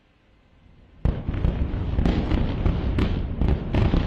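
Airstrike explosion: a sudden heavy boom about a second in, which runs on as a continuous rumble full of sharp crackling bangs.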